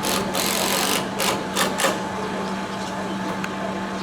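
A machine motor running with a steady hum, with a loud hiss in the first second and three short hissing bursts just under two seconds in.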